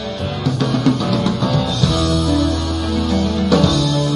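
Music with plucked guitar-like notes over sustained bass tones, played back from a cassette on a Nakamichi CR7 deck through hi-fi loudspeakers and picked up by a camera microphone in the room.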